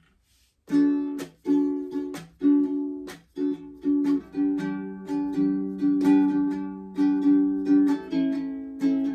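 Ukulele strumming a rhythmic chord pattern, starting about a second in after a brief quiet: an instrumental intro with no singing.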